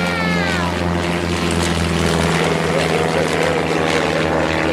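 Cartoon engine sound effect: a steady motor drone, with a short whistle that rises then falls at the start and a wavering tone from about halfway.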